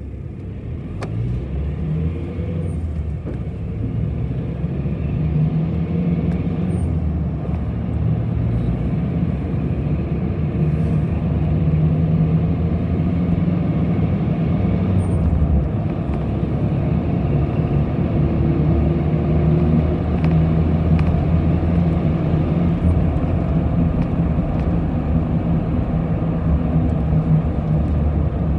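A bus's engine and road noise heard from inside the cabin while it is under way. The sound grows louder over the first five seconds or so, and there are a few faint rattling clicks.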